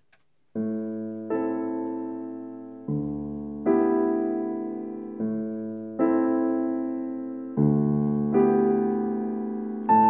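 Short interlude of keyboard music: sustained chords struck in pairs, a new chord every second or so, each slowly dying away.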